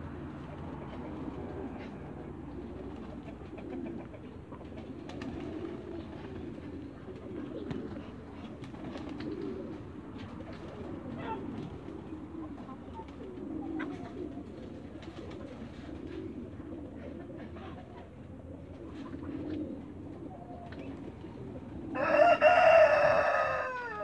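Farmyard birds making soft, low cooing calls every second or two, then a rooster crowing loudly about 22 seconds in.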